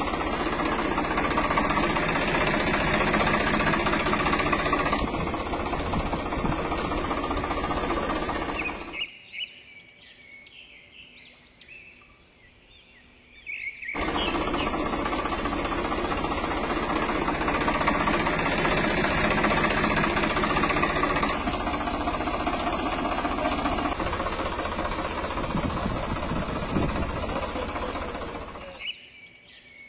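Tractor engine running with a fast, steady rattle. It cuts out about nine seconds in and starts again about five seconds later, with small birds chirping faintly in the quiet gaps.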